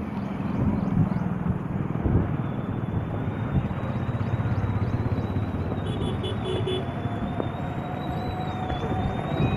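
Vehicle engines running amid a steady rushing noise, with four quick short beeps about six seconds in.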